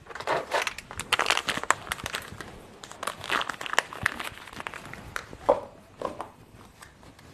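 A young kitten chewing dry kibble from a plastic bowl: quick crisp crunching clicks, densest in the first four seconds and sparser after.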